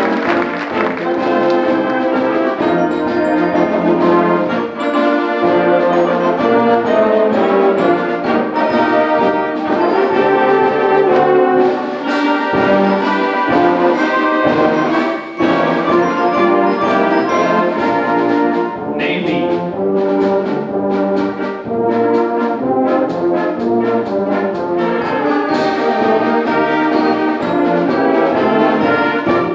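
High school symphonic band playing, with trombones, trumpets and French horns carrying the music.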